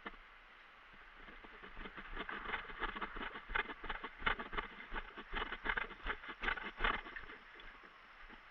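Quick footsteps crunching over rough ground and brush, several steps a second, for about five seconds.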